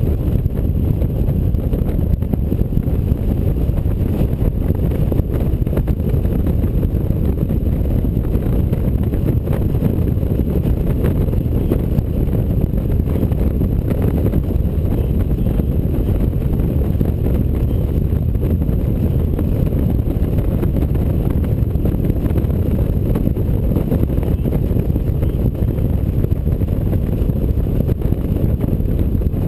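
Steady low rumble of wind buffeting a motorcycle-mounted microphone, mixed with the engine and road noise of a touring motorcycle riding along a highway.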